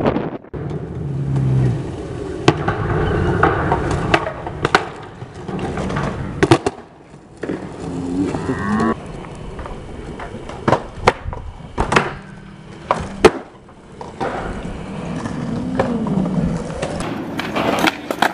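Skateboards rolling on concrete, with repeated sharp clacks of boards popping and landing tricks.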